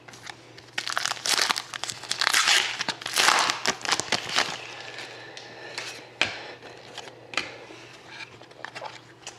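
A trading-card pack wrapper being torn open and crinkled, then lighter rustling and small clicks as the cards are handled.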